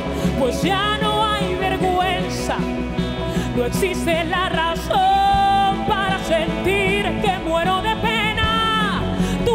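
Live worship band music: a wordless lead melody with vibrato, slides and long held notes over a steady bass and band accompaniment.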